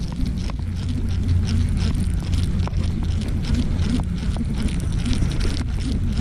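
A small fishing boat's motor running with a steady low hum, with scattered light clicks and knocks over it.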